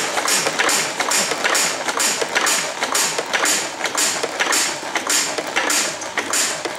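McCormick-Deering Model M engine being cranked over with its compression released, with a regular clicking about twice a second that is the impulse coupling at work, while its ignition fires a test plug.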